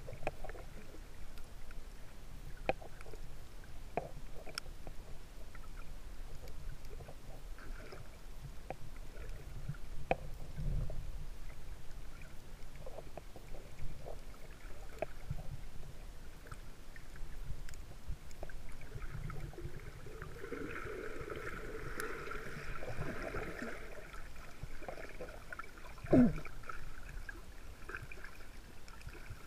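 Underwater sound picked up by a camera held below the surface: a muffled rush of water with scattered faint clicks. A muffled hum comes in for a few seconds in the latter part, and there is a single louder knock near the end.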